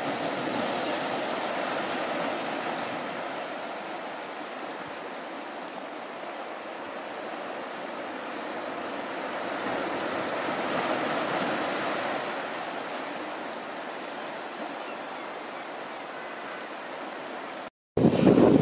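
Steady wash of open sea and wind, swelling gently twice. After a brief dropout near the end, louder surf with wind buffeting the microphone.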